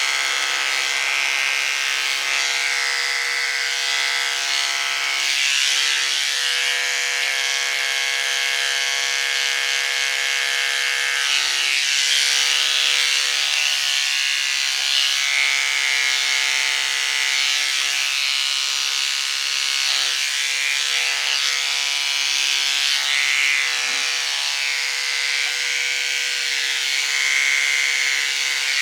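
Electric hair clippers running with a steady buzz, the sound roughening now and then as the blades work through a dog's coat.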